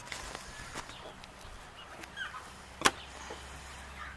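Small scissors snipping through a tape bandage on a chicken's foot: a few light clicks, the sharpest about three seconds in. Faint chicken clucks in the background.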